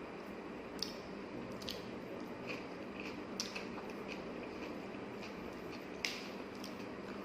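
Close-up wet mouth smacks and squishes of someone chewing food open-mouthed: a dozen or so short sharp clicks, the loudest about six seconds in, over a steady low background hum.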